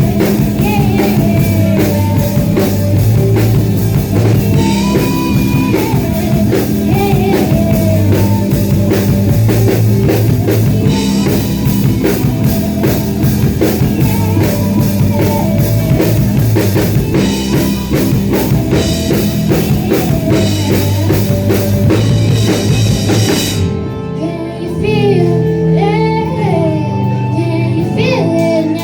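Live rock band with a female singer, drum kit, guitar and bass. About 24 seconds in, the drums stop abruptly, leaving the voice over guitar and bass.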